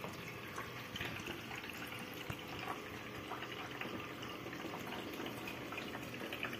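Tap water running through the inlet hose into the tub of an Artel TG-100 FP twin-tub washing machine, filling it with a steady, even rush.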